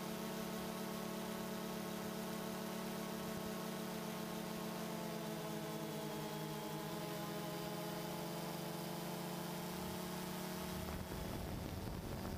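DJI Phantom 2 quadcopter's four motors and propellers humming steadily in flight, heard close up from the camera it carries, the pitch shifting slightly midway. Wind starts buffeting the microphone near the end.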